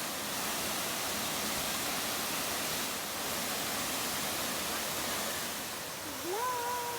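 Steady rushing of a river or waterfall. About six seconds in, a person's voice calls out on one held, rising note.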